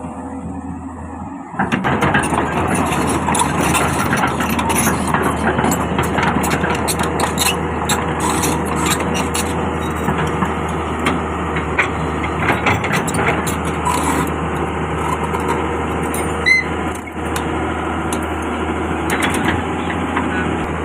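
Excavator's diesel engine running under load while the machine works, getting louder about a second and a half in, with a steady low hum and many short knocks and rattles. A brief squeak comes near the end.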